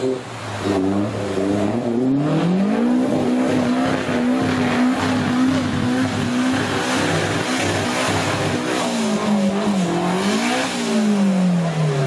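Off-road 4x4 competition truck's engine revving as it pushes through a fast, rocky river. The revs climb about two seconds in, hold high for several seconds, sag, rise once more near the end and fall away. The rush and splash of white water runs under it.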